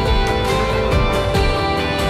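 Background music with a steady beat and plucked guitar.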